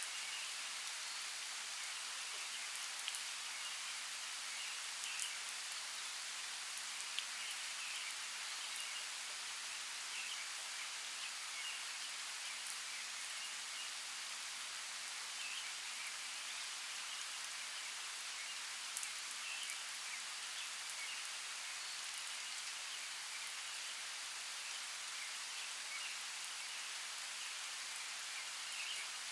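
Steady rain falling in a forest, an even hiss with scattered louder drops ticking now and then.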